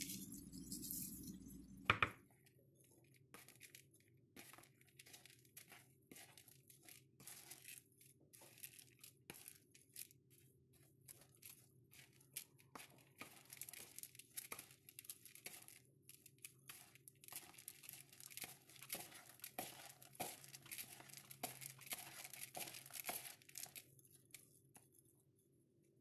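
Hand mixing raw rice, chopped herbs and spices in a plastic bowl: a run of quick rustles and clicks of rice grains, thickest near the end. A single sharp knock about two seconds in.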